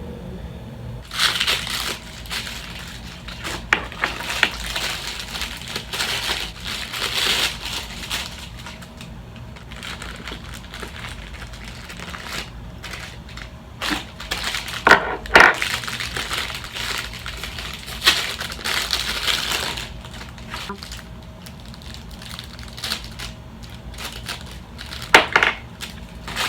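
Plastic wrapping crinkling and rustling as ring-light parts are unpacked, with a few sharp knocks in the middle and near the end.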